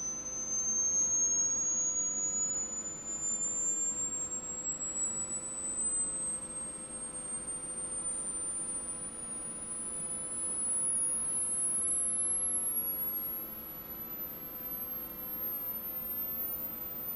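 Pure sine-wave test tone from a frequency-sweep video, played through speakers and rising steadily in pitch from about 6 kHz to about 13 kHz, used as a frequency-response test.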